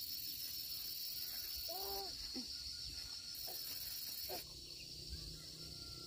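Steady high-pitched chorus of insects chirring in the field, with a couple of short calls about two seconds in; the chorus drops slightly in level about four seconds in.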